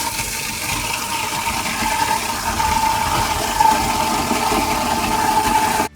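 Under-sink food waste disposer running with its splash guard removed, grinding food scraps as tap water pours through. A steady motor whine sits over the rush of water and stops abruptly just before the end.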